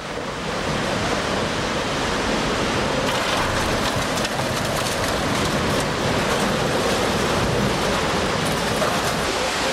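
Scrapyard din as a crane's grapple works a heap of scrap metal: a steady rushing noise that fades in at the start, with faint scattered clinks.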